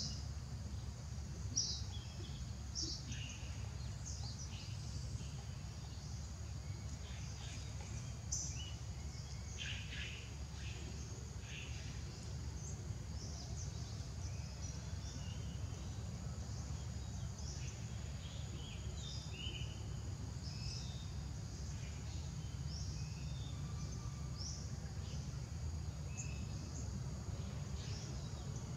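Outdoor ambience: a steady high insect drone with many short high chirps scattered throughout, over a low steady rumble.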